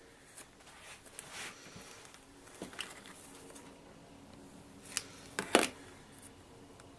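Hands handling small plastic craft pots and bits on a tabletop: a soft rustle in the first two seconds, a few light clicks, and a sharp click about five and a half seconds in, the loudest.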